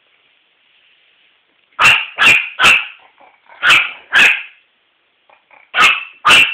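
A dog barking, loud and sharp, in short runs: three barks about two seconds in, two more about a second later, then two near the end.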